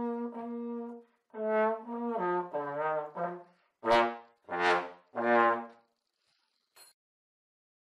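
Brass instruments playing a closing musical phrase: held notes, then a quicker run, ending on three loud accented notes. A short faint click follows near the end.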